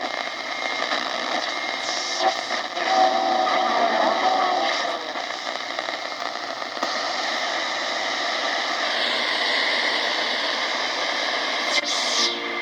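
Portable shortwave radio receiver hissing static from its speaker between stations, with a brief whistling tone about three seconds in and the noise shifting as it is tuned.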